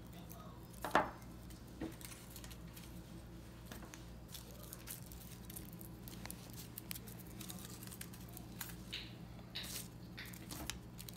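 Quiet tabletop crafting: a glue stick and tissue paper handled, with scattered small clicks, taps and brief rustles, the sharpest click about a second in.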